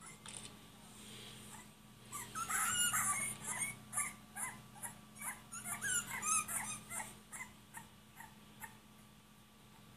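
Dog whimpering and yipping: a quick run of short, high-pitched, gliding whines that starts about two seconds in and thins out after about seven seconds.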